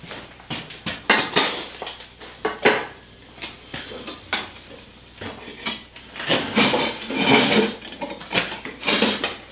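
Steel forge body being lowered in its frame onto the fire-brick base, with irregular metal clanks and scrapes that are busiest in the last few seconds.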